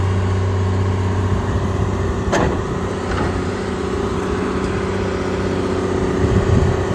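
An engine idling steadily with a low hum, with a brief higher sound about two and a half seconds in.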